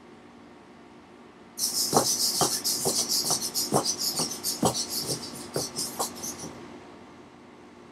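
Tower Pro MG90S micro servos of a six-legged walking robot whirring as it steps, with its feet tapping the hardwood floor about twice a second. The whirring and tapping start about a second and a half in and stop about six and a half seconds in.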